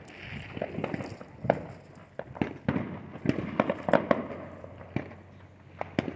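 Fireworks going off: a stream of sharp bangs and pops at irregular intervals, some overlapping and some ringing on briefly, the loudest about a second and a half in and again near four seconds.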